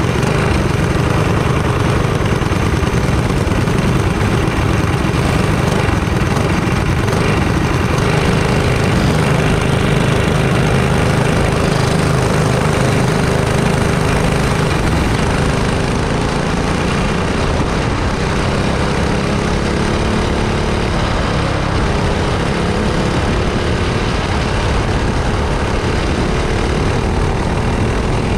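Small racing engines running steadily and loudly, their pitch climbing slowly through the second half.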